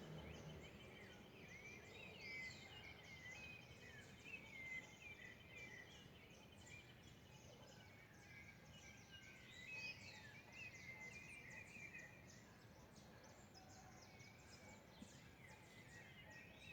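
Several small birds singing and chirping faintly, with many short whistled notes and one fast, even trill held for several seconds near the start.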